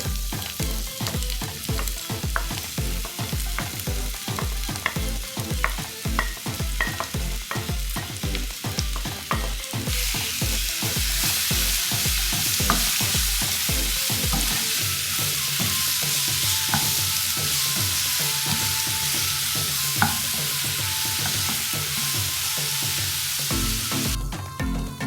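Food frying in hot oil while being stirred: scattered clicks and scrapes over the first ten seconds, then a steady loud sizzle from about ten seconds in until just before the end. Background music with a steady beat runs under much of it.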